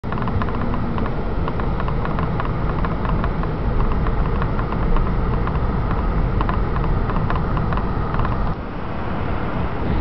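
Car moving slowly, a steady low rumble of engine and tyres heard from inside the cabin, with light clicking over it. The rumble eases a little near the end.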